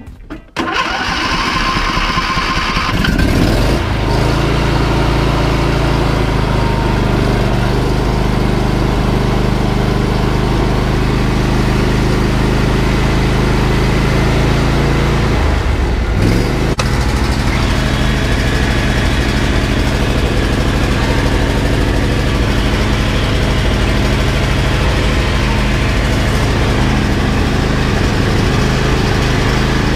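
A John Deere riding lawn mower's engine starting about half a second in, cranking and catching within a few seconds, then running steadily. About halfway through, its speed briefly dips and comes back up.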